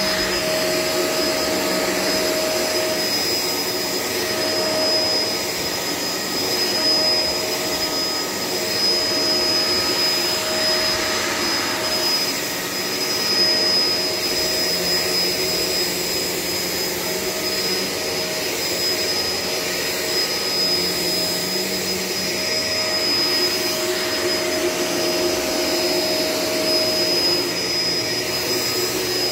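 Shark LA702 Lift-Away upright vacuum cleaner running steadily, its motor giving a constant high whine over a rushing airflow noise, swelling slightly now and then as it is worked over the floor.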